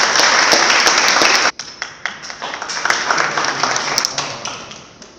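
Audience applauding. The clapping is loud at first, breaks off abruptly about a second and a half in, then goes on more thinly and dies away near the end.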